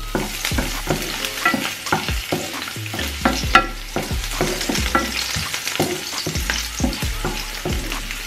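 Chopped garlic and onion frying in a non-stick frying pan, stirred with a wooden spoon that knocks and scrapes against the pan about two or three times a second over a steady hiss.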